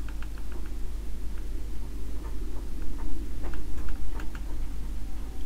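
Scattered light clicks at an irregular pace, about a dozen, over a steady low electrical hum.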